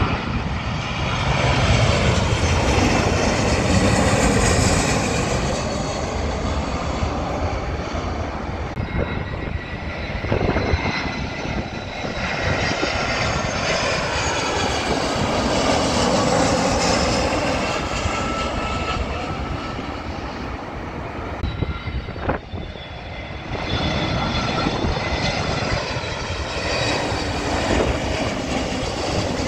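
Turbofan engines of jet airliners on final approach (a Boeing 737, then Airbus A320s) passing low overhead one after another. Each pass swells and fades with a gliding whine, and the sound cuts from one aircraft to the next about every eleven seconds.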